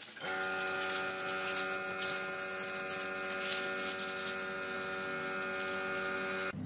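Pointed hand tool scraping and picking crumbly rotten wood out of a slab's decayed pockets, a dry scratching with small ticks. Under it, a steady hum of several tones starts just after the beginning and cuts off abruptly near the end.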